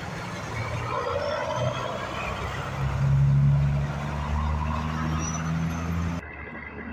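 Diesel engine of a semi truck pulling a loaded flatbed, running under load as the truck accelerates away through an intersection. The engine sound is loudest about three seconds in, and the sound drops off suddenly near the end.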